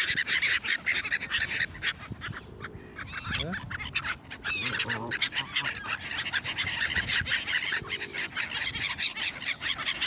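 Canada geese honking close by, among a crowd of black-headed gulls calling, with a quieter spell about two to four seconds in.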